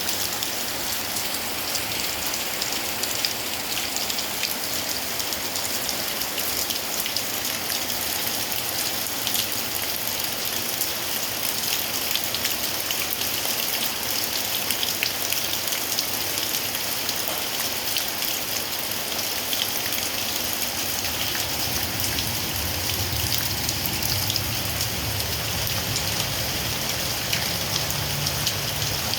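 Heavy rain pouring steadily, a dense hiss with the patter of many drops. A low rumble joins it about two-thirds of the way through.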